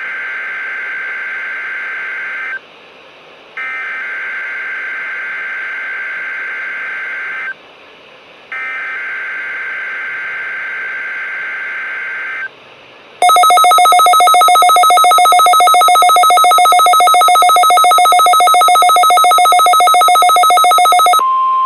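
Emergency Alert System data header: three identical raspy, chirping digital bursts about four seconds long, each a second apart. They are followed by a loud, rapidly pulsing two-tone alert alarm for about eight seconds. Near the end this gives way to a single steady alert tone, the weather-radio warning tone that precedes an alert message.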